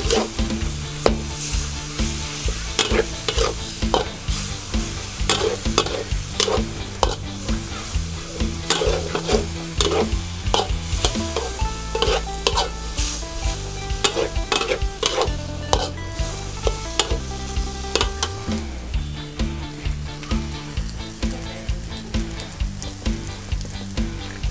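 Wide rice noodles with pork being stir-fried in a hot pan for pad see ew, sizzling steadily. A spatula scrapes and knocks against the pan in repeated strokes, a little more than one a second.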